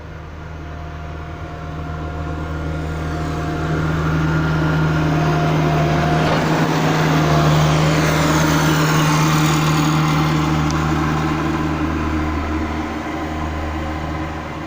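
A road vehicle passing: its noise grows louder to a peak about halfway through, then slowly fades, over a steady low hum.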